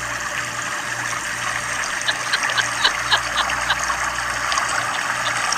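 Bathtub tap running, a steady stream of water pouring into the tub, with small splashes and ticks of water between about two and four seconds in.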